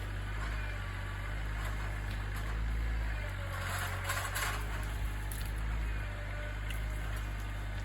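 Tractor engine running at a steady speed, a low even hum.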